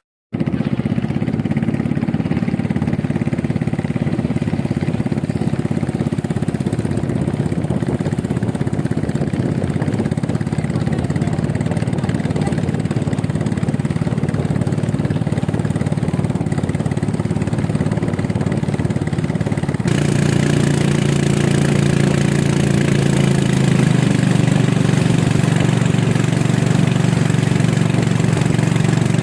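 A small engine running steadily. About twenty seconds in its sound changes: a little louder, with more hiss and a stronger hum.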